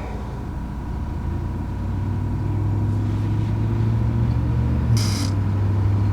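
A motor running steadily with a low hum that slowly grows louder, and one short hiss about five seconds in.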